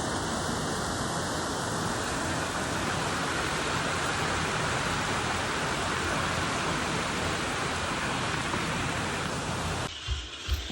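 Steady rain falling, an even hiss. It cuts off abruptly near the end, followed by a few low knocks.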